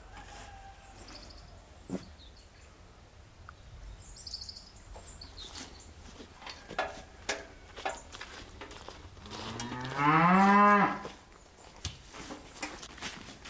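A cow mooing: one long call about ten seconds in, rising and then falling in pitch, and much the loudest sound. Before it come a few faint bird chirps and scattered light knocks.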